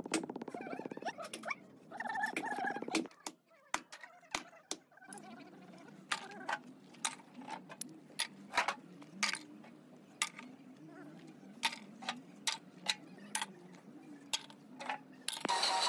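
Scattered sharp clinks and knocks of broken scrap cast-iron pieces being handled, coming irregularly about once or twice a second, with voices in the first few seconds and music starting near the end.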